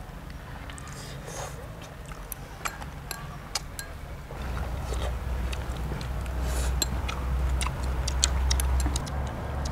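Light clicks and taps of wooden chopsticks against a small ceramic bowl while picking up salad, over a low steady rumble that grows louder about halfway through.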